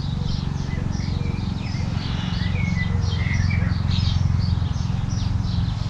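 Birds chirping in quick, repeated short calls, over a steady low rumble.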